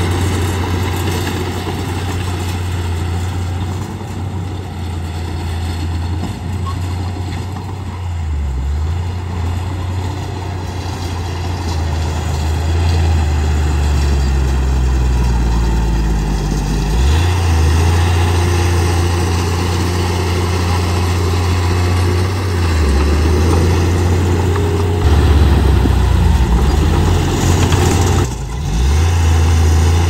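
Bulldozer's heavy diesel engine running steadily, its low note dropping and picking up again several times as the machine works.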